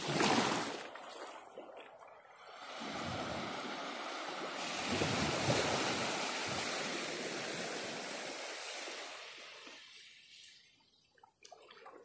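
Small waves from a calm sea washing up onto a sandy beach. There is a short wash right at the start, then a longer one that builds about three seconds in and slowly fades out near the end.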